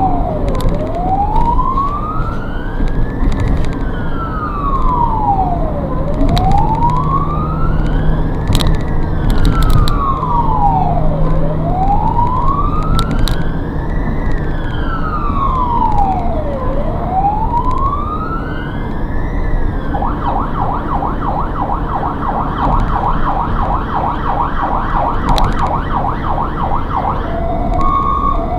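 Ambulance's electronic siren sounding while responding, heard from inside the cab over engine and road noise: a slow wail rising and falling about every five seconds, switching about twenty seconds in to a fast yelp, then near the end to a two-tone high-low pattern.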